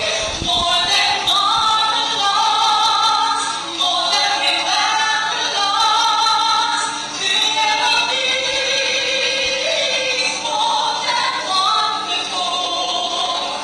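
A woman and a man singing a Christian duet into handheld microphones, with long held notes that glide between pitches.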